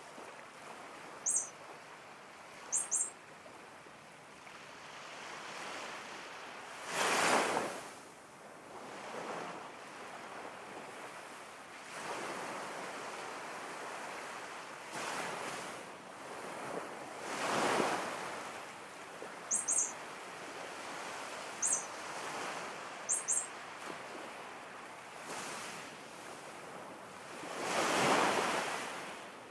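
Ocean surf: a steady wash of waves, with a big wave swelling and fading about every ten seconds. Short, high bird chirps come in quick pairs a few times, near the start and again around the middle.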